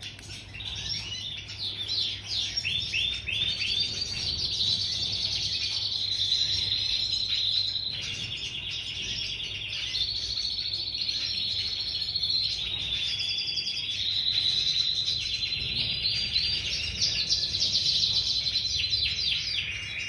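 Cage finches singing without a break: long, rapid trills and twittering phrases.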